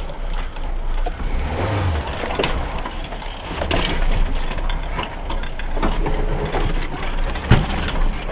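A car running, a steady low engine hum under road noise, with a few short knocks and a sharper thump near the end.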